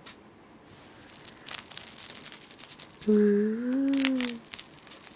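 Lamaze caterpillar soft toy shaken by hand, its rattle segments rattling in quick bursts for about four seconds. About three seconds in, a voice holds a drawn-out 'ooh' that rises and then falls over it for a second or so.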